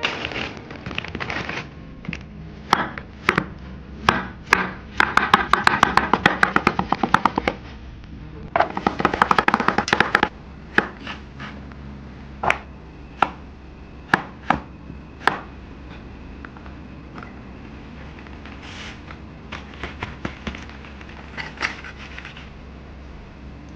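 Kitchen knife cutting potatoes into wedges on a wooden chopping board, each cut ending in a knock on the board. Two runs of quick strokes come first, then single cuts less than a second apart.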